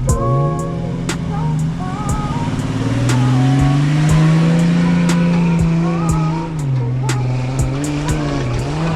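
4x4 truck engine working under load in snow. Its revs climb over the first few seconds, hold, then ease back and rise and fall again, with scattered sharp clicks and knocks.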